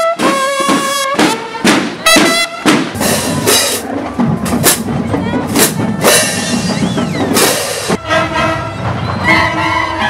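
A marching band playing: brass notes over drum beats, with a busier, noisier stretch in the middle before the brass notes come through clearly again near the end.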